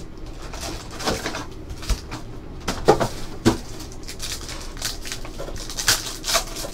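Foil wrappers of Panini Select basketball card packs crinkling and tearing as packs are opened by hand, in short irregular rustles with sharper crackles about a second, three seconds and six seconds in.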